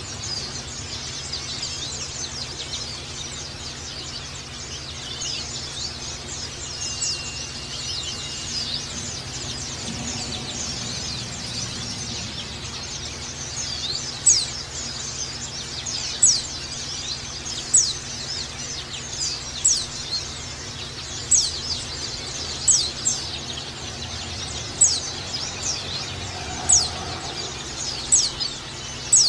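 White-eyes (pleci) chirping: a dense, high-pitched twitter throughout. From about halfway in, sharp high chirps that drop in pitch repeat roughly once a second, louder than the twitter.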